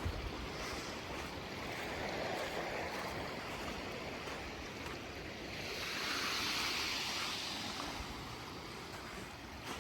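Sea waves washing in on the shore, with a swell about two seconds in and a louder wash around six to seven seconds in.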